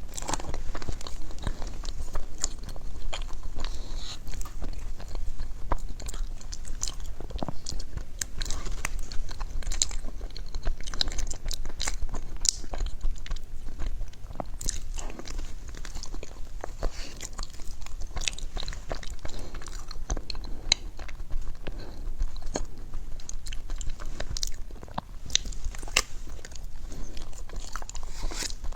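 Someone eating crunchy food: repeated crisp bites and chewing, a dense irregular run of crackles and crunches.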